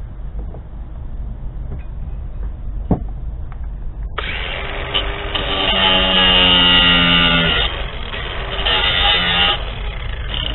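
A few small clicks of handling, then about four seconds in an electric motor starts with a sudden steady whine. It runs in spurts, easing off twice and picking up again near the end.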